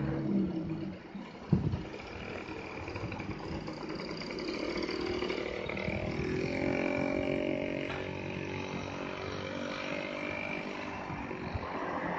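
Komatsu PC200 excavator's diesel engine running as the arm swings and digs, its note growing fuller about halfway through, with a single sharp knock about a second and a half in.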